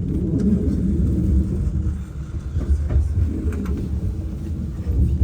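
Low, steady rumble of a railway station with a train at the platform, with a few faint clicks.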